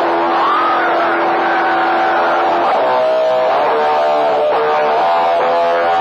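CB radio skip on channel 28 heard through the receiver: several electronic tones over a hiss of static. One tone holds steady and cuts off about halfway through while others warble and bend in pitch, the noises operators put out over one another on the channel.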